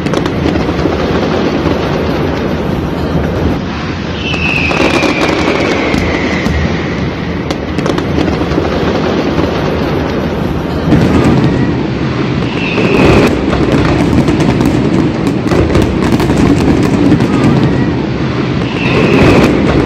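Many fireworks bursting and crackling without a break, merging into a continuous rumble. Three whistles fall in pitch: one about four seconds in, one in the middle and one near the end.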